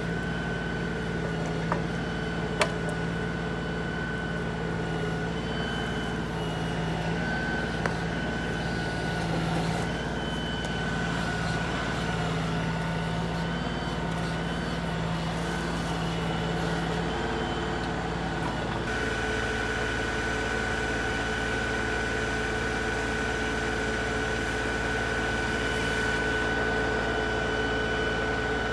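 LS XR3135 compact tractor's 35-horsepower diesel engine running steadily, its note changing about two-thirds of the way through. A few sharp knocks in the first part.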